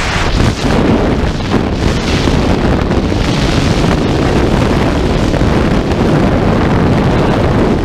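Loud, steady rush of freefall wind buffeting a hand-held action camera's microphone.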